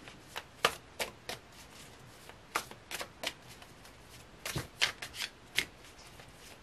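A tarot deck being shuffled by hand: irregular short clicks and slaps as the cards knock together, in loose clusters.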